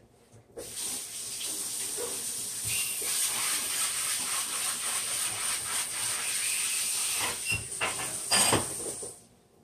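Eggs frying in a hot pan with the stir fry, a steady loud sizzle that starts suddenly about half a second in and cuts off near the end. A few clicks of a utensil against the pan come near the end, the loudest about a second before the sizzle stops.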